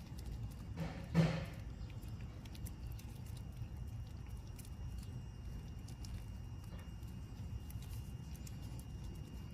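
A cat licking a churu lickable treat: faint, quick clicking and smacking of its tongue, with one short louder sound about a second in.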